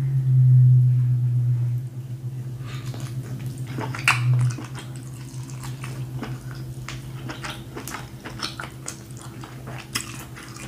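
Close-up wet eating sounds: king crab meat dipped and sloshed in a bowl of seafood boil sauce, then eaten and picked from the shell, with many small clicks and snaps of crab shell. A low steady hum runs underneath, loudest in the first two seconds.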